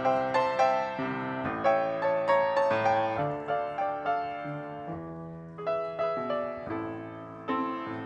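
Grand piano played solo: a slow, melodic passage of notes and chords, each struck and left to ring, fading softer toward the middle before a new phrase begins about halfway through.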